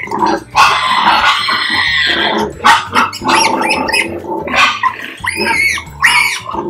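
Pigs squealing and grunting: a long harsh squeal starting about half a second in, then a run of shorter squeals and grunts, some rising and falling in pitch near the end.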